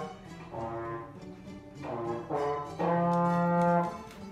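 A brass instrument, trombone-like, playing a slow line of held notes, each lasting about half a second to a second and stepping to a new pitch.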